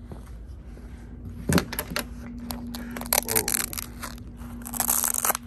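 A carbon-fibre-look Faraday key-fob pouch being handled: a few clicks and rustles, then a rasping, tearing scrape lasting about half a second near the end. A faint steady hum runs underneath.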